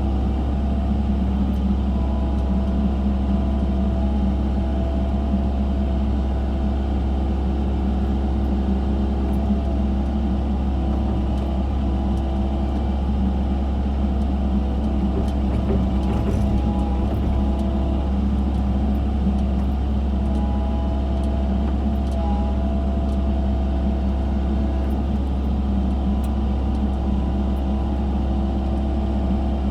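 Excavator engine running at a steady speed throughout, a constant low drone with no changes in pitch or load.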